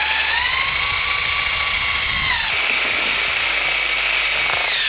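DeWalt 20V cordless drill whining steadily as a step drill bit bores through a plastic headlight dust cover. The whine drops to a lower pitch about two and a half seconds in and dips again near the end.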